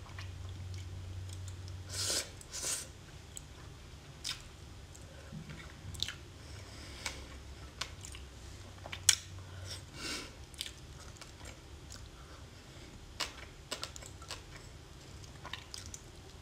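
Close-miked chewing of soft shellfish coated in thick sauce: irregular wet smacks, squishes and sharp little clicks from the mouth, with a few louder smacks around two seconds in and one sharp click about nine seconds in.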